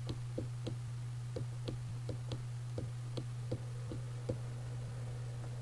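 A steady low electrical hum with faint light ticks of a pen on a writing tablet, about three a second, as an equation is handwritten.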